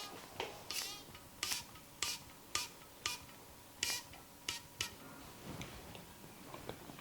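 Sharp cracks and snaps from a barber's hands during an Indian head massage, about nine in the first five seconds at uneven spacing, one a quick rattling crackle, then a few fainter clicks near the end.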